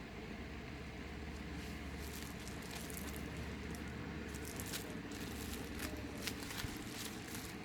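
Packaging being handled during an unboxing: a run of small, irregular crackles and rustles, over a steady low hum.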